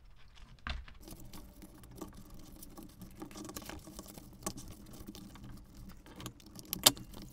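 Light scattered taps, clicks and rustles of hands handling a cardstock clock-face insert and small craft items on a tabletop, with one sharper click near the end.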